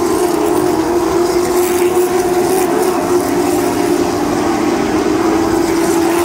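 Several stock car engines running together as the field circles the short oval track, a loud steady drone with one strong held pitch.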